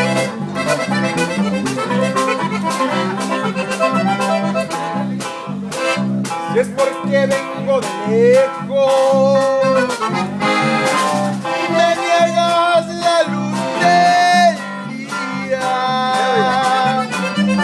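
Norteño-style Latin dance music: an accordion plays the melody over guitar and a steady, evenly pulsing bass.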